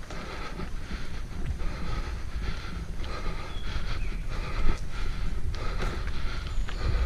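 Mountain bike riding over a leaf-covered dirt trail: a steady low rumble of wind and tyres on the camera microphone, with the bike rattling and a sharp knock about four and a half seconds in.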